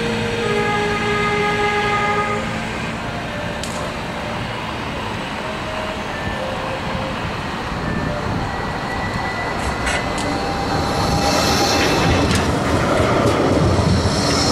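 Trams running on street track: a double-deck Balloon heritage tram moving off close by with a whine in the first couple of seconds, then a modern Flexity 2 tram running in and passing close, its wheels on the rails getting louder and loudest near the end.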